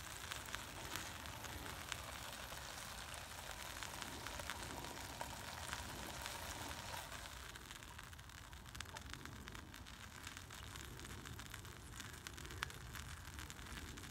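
Bacon sizzling and crackling faintly in a small frying pan over a fuel-block cooker, with many fine pops; it gets a little quieter about halfway through.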